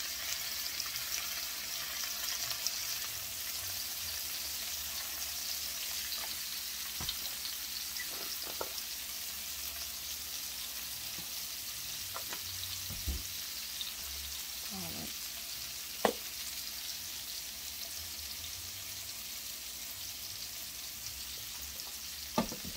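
Impossible plant-based ground meat and chopped onions sizzling steadily in oil in a cast-iron skillet. A few light clicks sound over the sizzle, the sharpest about two-thirds of the way through.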